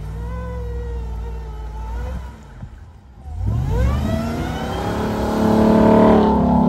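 Ram TRX's supercharged 6.2-litre Hemi V8 running steadily, easing off a little after two seconds in. It then revs sharply from about three and a half seconds as the wheels spin in the snow, and is loudest near the end.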